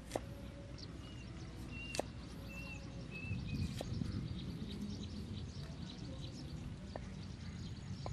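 Cleaver chopping water lily stems on a wooden chopping board: a few sharp knocks, spaced one to three seconds apart, over a steady low background rumble. A bird chirps a few times in the first half.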